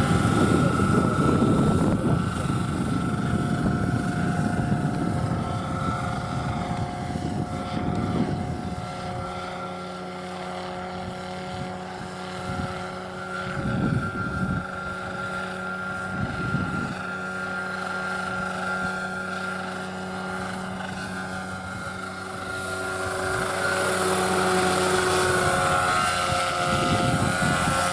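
Radio-controlled scale model helicopter flying, a steady whine of its motor and rotors. It is louder at the start, falls away through the middle and grows louder again from a few seconds before the end.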